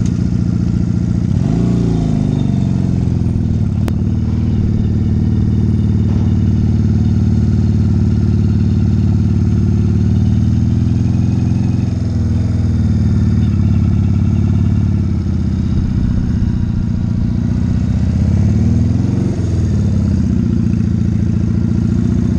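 1985 Honda Rebel 250's air-cooled parallel-twin engine running steadily at low speed, revving up and back down briefly about a second and a half in and again toward the end.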